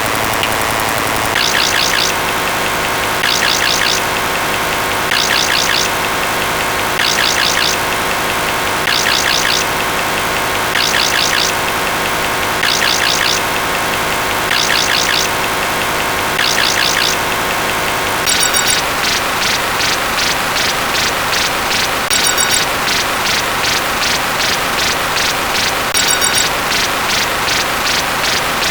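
A dense cacophony of layered sound effects: a steady noisy wash with held tones underneath. A bright chirping burst repeats about every two seconds, and about 18 seconds in it switches to a faster pulse of about two a second.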